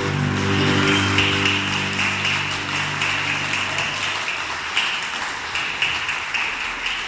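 Audience applauding while the grand piano's final chord rings and fades out about four seconds in, leaving only the clapping.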